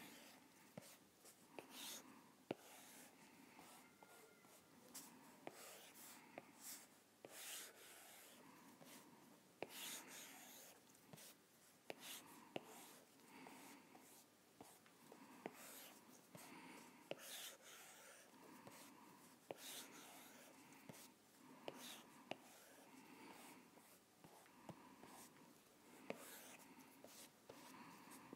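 Faint stylus strokes on an iPad's glass screen while inking lines: repeated short swishes, each well under a second, with small sharp clicks as the pen tip touches down and lifts.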